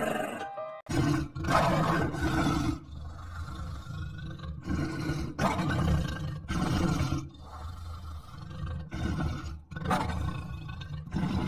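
Lion roaring and growling, a series of rough roars one after another.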